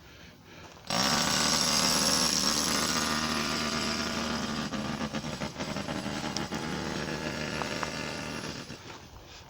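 A power tool running hard, starting suddenly about a second in and easing off toward the end, as installers work on the new furnace's intake and exhaust piping.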